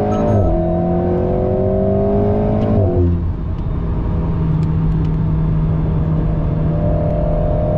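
Alpine A110S's turbocharged four-cylinder heard from inside the cabin, accelerating hard with an upshift just after the start and rising in pitch for about three seconds. The pitch then drops and the engine holds a steady lower note over tyre and road noise.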